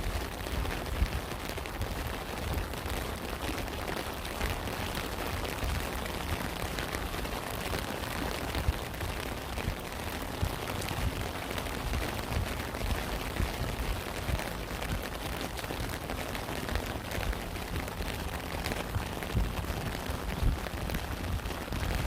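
Steady rain falling, with many separate drops ticking over an even hiss and a low thudding rumble underneath.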